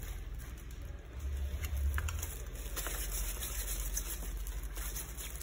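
Gloved hands rubbing and rustling softly as a ball of sticky peanut paste is rolled between the palms, with a couple of faint clicks from the spoon, over a low steady hum.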